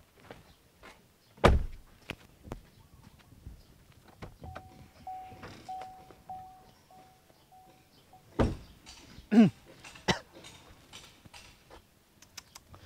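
A pickup truck door shutting with a loud thump. A few seconds later comes a run of about eight short, evenly spaced beeps, then two more thumps with a brief falling tone between them.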